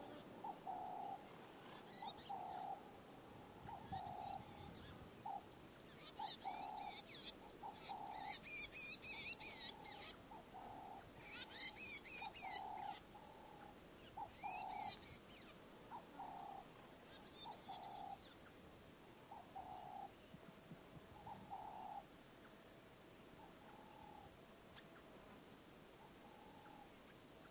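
Birds calling: one repeats a short, low hooting note about once a second, spacing out toward the end, while another sings bursts of high, rapid chirping, loudest about eight to twelve seconds in.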